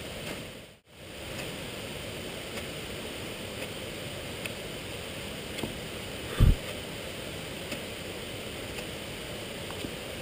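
Ferrocerium fire steel being struck repeatedly, faint short scrapes about once a second, over a steady rushing background noise. A dull low thump about six and a half seconds in is the loudest sound.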